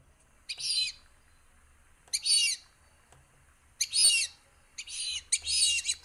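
Fulvous whistling-duck calling: five short, high, squeaky calls, spaced one to two seconds apart, the last two close together.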